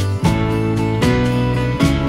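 Background music: acoustic guitar strumming chords that change about once a second.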